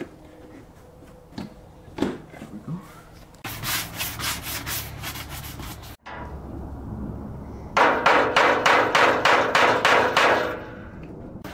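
Sandpaper rubbing back and forth over dried Bondo body filler on a car fender: two runs of quick, even strokes, about four a second, the second run louder, starting about eight seconds in.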